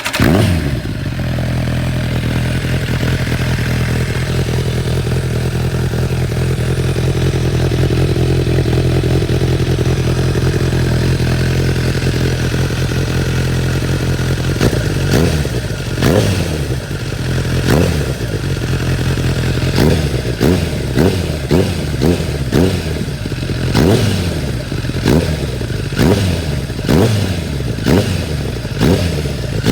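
Kawasaki ZZR1100 C inline-four motorcycle engine exhausting through a Trickstar aftermarket silencer. It catches and settles into a steady idle. From about halfway the throttle is blipped again and again, each rev rising and falling back, and near the end the blips come quicker.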